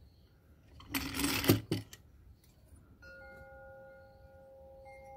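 A short scuffing burst about a second in as small carburetor parts are handled while fitting the metering rods, then a faint steady hum of several high tones from about three seconds.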